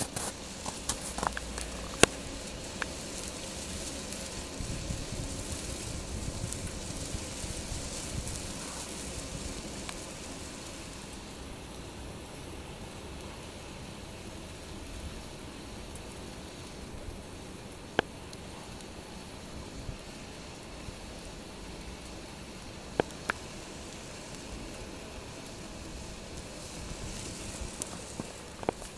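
Steady hiss of black walnut sap boiling hard in a steel pan on a wood-fired barrel evaporator, with a few sharp pops from the fire.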